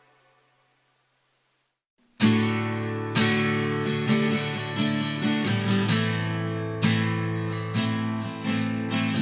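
Background music: a previous piece fades out to near silence, then about two seconds in an acoustic guitar starts strumming chords.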